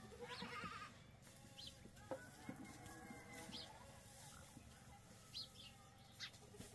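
Faint short, high bird chirps every second or two, with a brief wavering animal call about half a second in.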